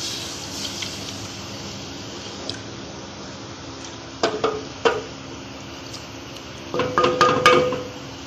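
Wooden spoon stirring watery gravy in a large aluminium pot and knocking against its side. A few clanks about four seconds in, then a longer run of knocks near the end that leave the pot ringing, over a steady low hum.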